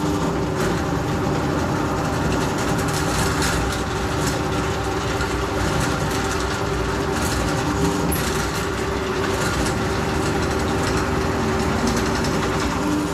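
A motor-driven machine running steadily with a continuous hum and noise, switched on just before.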